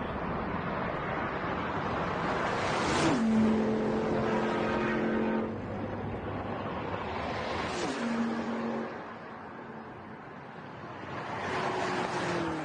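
Twin-turbo V8 cars, an Audi RS6 Avant and a BMW M6, drag racing flat out and passing close by: the engine note drops sharply in pitch as they go past, about three seconds in and again around eight seconds, with a third loud pass near the end.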